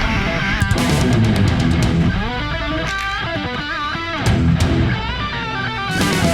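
Rock backing music led by electric guitar, with notes bending in pitch over bass and sharp percussive hits.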